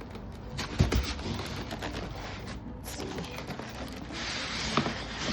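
Cardboard box and packing being handled: a thump about a second in, then scattered knocks and clicks, and a stretch of rustling near the end.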